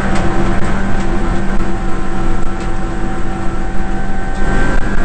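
Suzuki Swift race car's engine heard from inside the stripped cabin, running hard at steady revs with an even, unchanging pitch, plus a few brief knocks and rattles.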